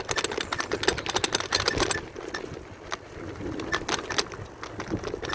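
Raindrops tapping close to the microphone, likely on a Gore-Tex rain jacket, as sharp irregular ticks. The ticks come thick and fast for about two seconds, then thin out to scattered single taps.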